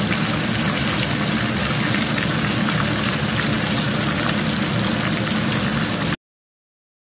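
Hot oil sizzling and crackling steadily around a whole porgy deep-frying in a pan; the sound cuts off suddenly about six seconds in.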